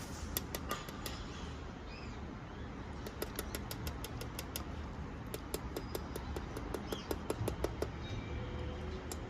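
Runs of light, quick clicks or taps, about four to six a second, stopping and starting several times over a faint low hum.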